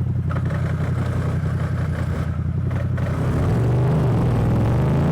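Motorcycle engine running steadily, then about three seconds in getting louder and rising in pitch as it accelerates.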